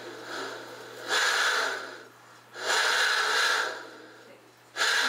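Breathy animal huffs made by a puppeteer at her mouth to voice a wooden animal puppet: three long, noisy breaths of about a second each, with softer breathing between them.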